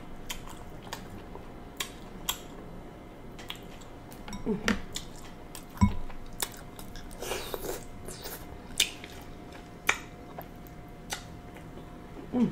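Close-up eating sounds: king crab shell being picked apart by hand, with scattered sharp clicks and cracks, and chewing and lip smacks of the crab meat dipped in butter sauce.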